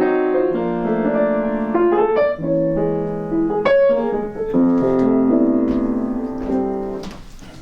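Piano playing chords and a melody line in a jazz recording session. The playing stops about seven seconds in, with a short burst of noise.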